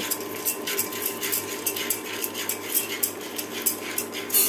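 Unpopped popcorn kernels being stirred with a silicone spatula in an aluminium pressure cooker, rattling and scraping against the pan in quick repeated strokes, about three a second, the last stroke loudest. A steady hum from the induction cooktop runs underneath; the kernels have not yet begun to pop.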